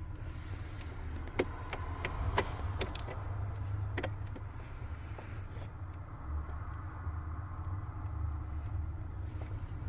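Small sharp clicks and knocks of plastic parts and a screwdriver as a replacement ignition switch is worked up into place under a steering column, over a steady low rumble.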